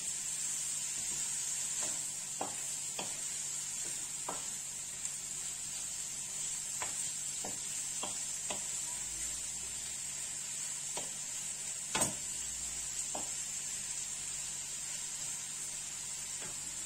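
Meat with onions and tomato sizzling steadily in a frying pan, stirred with a wooden spoon that knocks and scrapes against the pan now and then; the sharpest knock comes about twelve seconds in.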